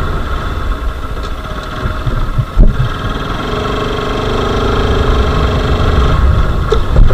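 Motorcycle engine running under way, heard from the bike with road and wind noise, with a single thump about two and a half seconds in. In the second half the engine note comes through more clearly and grows louder.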